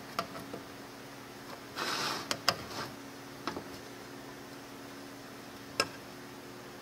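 Metal paint-can lid being pried up with a thin metal rod and lifted off: a short scrape about two seconds in and several sharp metallic clicks, the loudest near the end. A steady low hum runs underneath.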